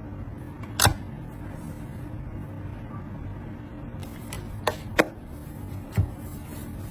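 Four short sharp clicks or taps over a steady low rumbling background. The loudest comes about a second in, and three more follow between four and six seconds in.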